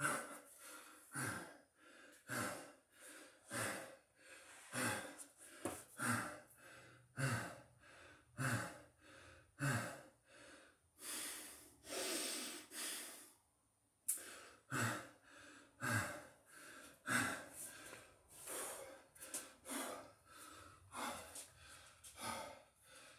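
A man's heavy breathing, about one breath a second, out of breath after a hard set of burpees. One longer breath comes just past the middle, followed by a brief pause.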